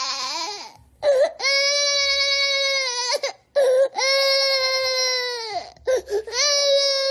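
Baby crying in long held wails, each one breaking off with a drop in pitch before a short catch of breath and the next wail.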